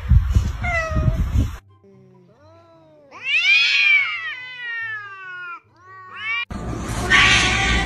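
Cat meowing: one long, drawn-out meow that rises and then falls in pitch, then a short rising meow.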